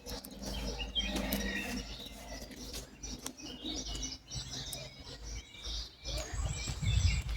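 Small birds chirping, many short calls, over a low rumble that grows toward the end.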